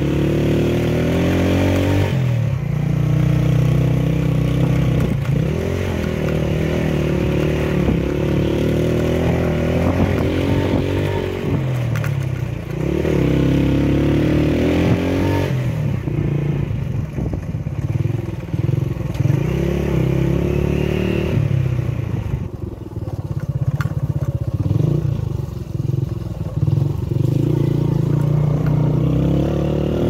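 Vehicle engine running on the move. Its pitch rises and falls in spells of a few seconds as it speeds up and changes gear.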